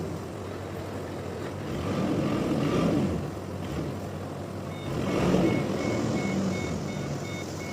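Heavy machine engine running steadily, swelling louder twice; in the second half its reversing alarm starts a rapid series of even-pitched beeps as it backs up.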